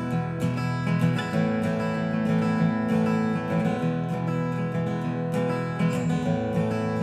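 Acoustic guitar strumming chords: the instrumental intro of a country song played live, just after a count-in and before the singing starts.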